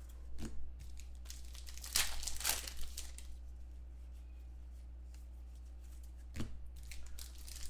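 A stack of football trading cards being flipped through by hand, the cards sliding and scraping against each other in a few short rustles: around half a second in, about two to three seconds in, and again near the end, with a quiet stretch in between. A steady low hum runs underneath.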